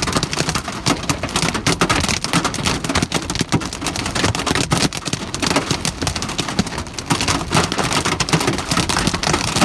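Hailstones mixed with rain pelting a hard surface: a loud, dense, irregular clatter of sharp cracks over the rush of rain, with no let-up.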